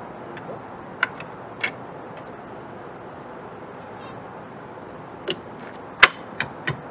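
Plastic trunk trim cover on an Infiniti Q50 being pressed back into place beside the tail light. It gives a series of sharp clicks as its clips snap in, the loudest about six seconds in, over a steady background hiss.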